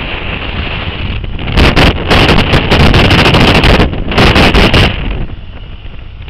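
Wind buffeting the microphone of a camera on a motorcycle at road speed, a steady rushing noise. From about a second and a half in to about five seconds in it breaks into very loud, distorted blasts with sharp knocks, while the camera is being moved about on the bike.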